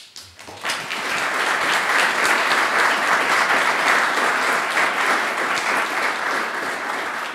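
Audience applauding: many hands clapping, building up within the first second and then steady.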